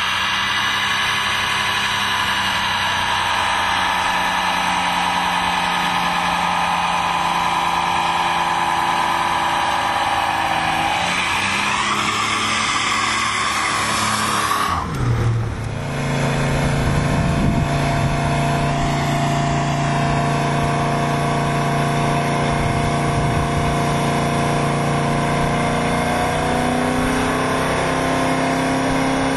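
The 340 Six Pack V8 of a 1970 Plymouth 'Cuda, fitted with headers, revving hard through a burnout with the rear tires spinning. The sound changes abruptly about halfway through, and the engine note climbs slowly near the end.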